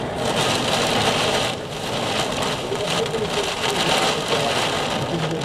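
Heavy wind-driven rain blowing sideways, a steady hiss of rain that dips briefly about a second and a half in and then picks up again.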